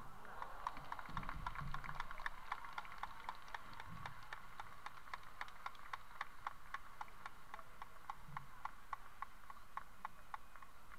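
Stadium crowd clapping in unison, a quick steady beat of about five claps a second over a low, even crowd hum.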